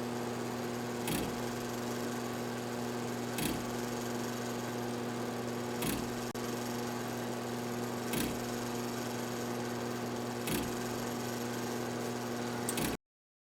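A steady machine-like hum with a short click about every two and a half seconds, stopping abruptly near the end.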